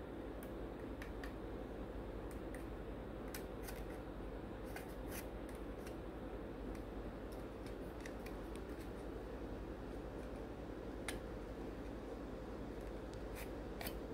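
Irregular small clicks and taps of hard styrene plastic model-kit parts being handled and pressed together in a dry fit, over a steady background hum and hiss.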